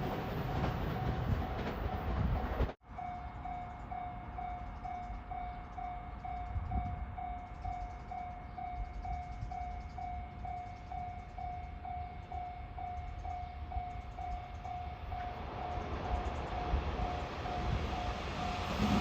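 Level crossing alarm ringing, a steady repeated electronic 'kan-kan' tone, over the rumble of a train. The sound cuts out sharply for an instant about three seconds in, then the alarm carries on as the train noise grows again toward the end.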